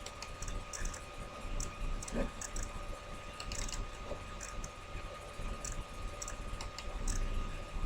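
Light, irregular clicking of a computer mouse and keyboard, used to zoom in on a lecture slide, over a faint steady electrical hum.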